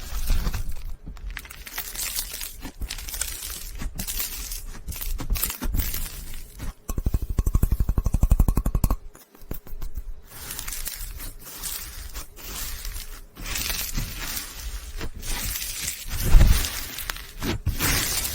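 Slime being squeezed and poked, giving irregular crackling and popping clicks, with a run of rapid, even pops for about two seconds in the middle.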